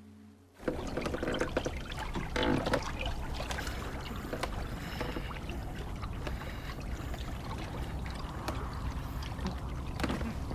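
A faint ringing tone gives way abruptly, about half a second in, to a steady rush of water-like noise with a strong low rumble and scattered splashes and knocks.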